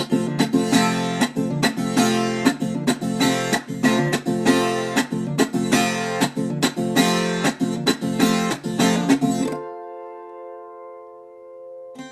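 Viola caipira, the Brazilian ten-string folk guitar, picking a quick hymn melody. About nine and a half seconds in, a chord is left ringing and fades, and the picking starts again at the very end.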